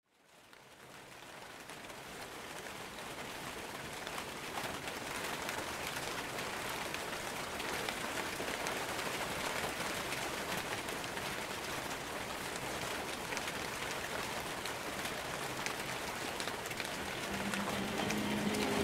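Steady rain, fading in from silence over the first two seconds. A low held musical note comes in near the end.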